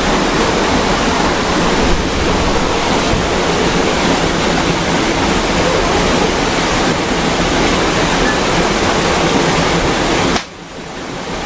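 Rushing water: a steady, loud noise with no distinct events, which drops away suddenly about ten seconds in.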